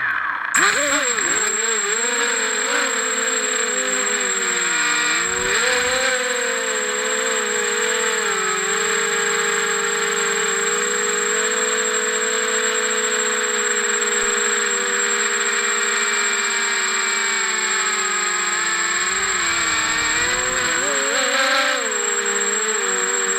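Multirotor drone's motors and propellers running, their buzz wavering up and down in pitch with the throttle, over a steady high whine.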